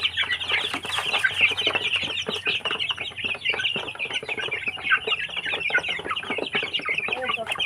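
A flock of young Barred Plymouth Rock chickens and chicks peeping and clucking continuously as they feed, with rapid short taps of beaks pecking at the feed trays.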